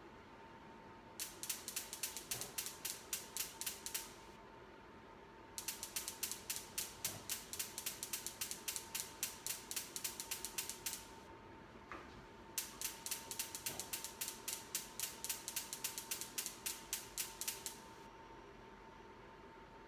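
Rapid mechanical clicking, about five clicks a second, in three runs of a few seconds each, over a faint steady tone.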